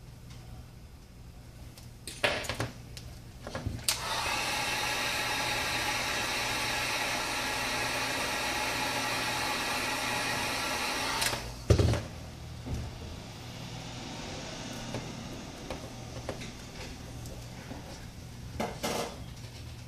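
Wagner heat gun blowing with a steady whooshing whine for about seven seconds, then cut off abruptly, heating the phone's front to loosen the screen adhesive. A few knocks and clicks of handling come before and right after it, and a quieter steady hum follows.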